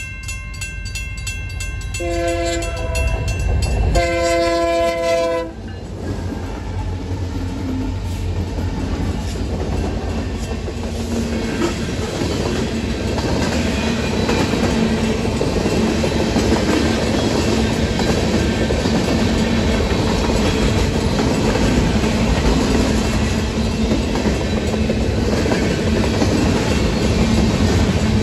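Railroad crossing bell dinging, then a Union Pacific freight locomotive's air horn sounds two blasts, the second slightly longer. After that comes the steady noise of the freight train's tank cars and boxcars rolling over the crossing, with wheels clattering on the rail joints.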